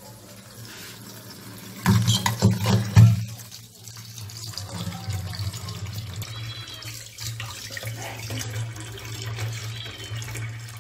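Water running from a newly installed kitchen faucet into a stainless steel sink, a steady stream splashing on the basin. A short burst of louder knocks comes about two seconds in.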